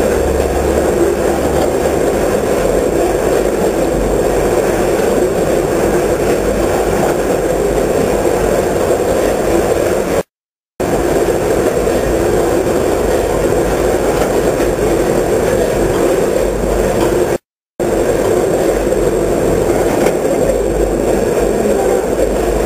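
Multihead food weigher with stainless-steel hoppers running: a steady mechanical din that cuts out completely twice for about half a second, about ten and seventeen seconds in.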